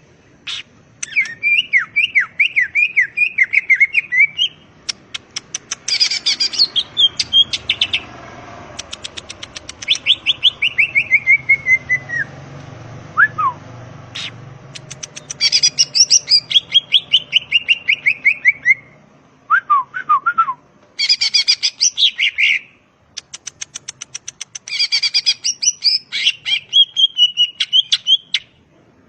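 Cucak ijo (green leafbird) singing a loud, varied song in bursts of a few seconds. It mixes rapid clicking trills with runs of whistled notes that fall in pitch, with short pauses between phrases.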